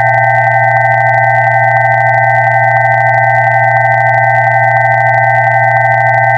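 Several electronically generated pure tones sounding together, one low and a few higher, held perfectly steady without any change.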